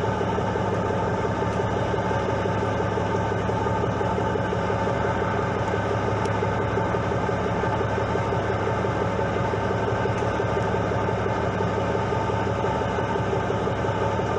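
Fishing boat's engine running steadily, a constant drone with a stack of steady tones.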